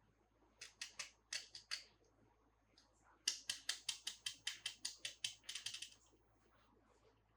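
A series of sharp clicks: a handful spread over the first two seconds, then a fast, even run of about fifteen, some five a second, from about three seconds in to six.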